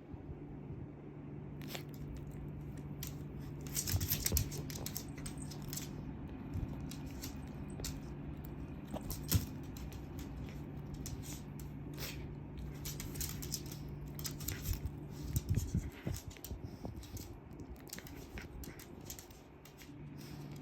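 A cat and a toy poodle scuffling: scattered light clicks, taps and rustles, a few louder ones, over a steady low hum that drops out for a few seconds near the end.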